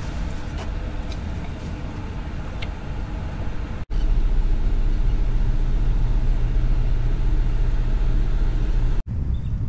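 Wind buffeting the camera microphone: a steady low rumble that grows heavier about four seconds in, breaking off for an instant twice.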